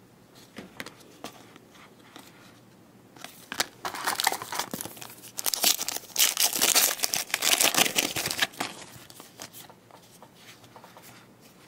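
A trading card pack's wrapper being torn open and crinkled by hand: a crackly rustling that starts about three seconds in and dies down after about nine seconds.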